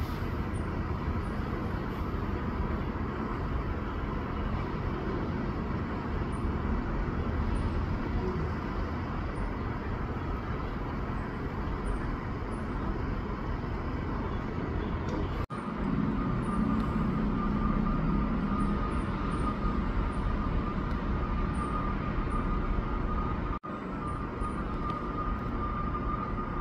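Steady outdoor background rumble and hiss with no clear single event. The sound drops out briefly twice, and after the first break a faint steady high tone runs alongside it.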